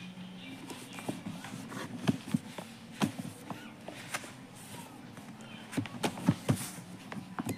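Irregular light knocks and clicks from a pen and fingers handling a paper notebook close to the microphone, over a low steady hum.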